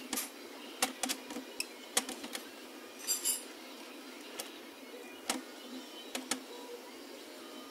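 Small steel parts of a knurling tool clicking and clinking against each other as they are fitted together by hand. About a dozen sharp, separate clicks, with a short rattle about three seconds in.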